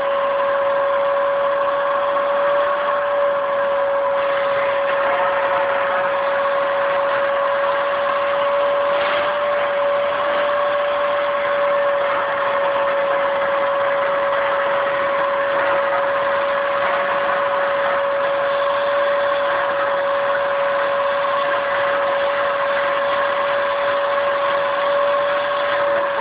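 Vacuum cleaner running steadily: a constant motor whine over an even rush of air, unchanged in pitch and level throughout.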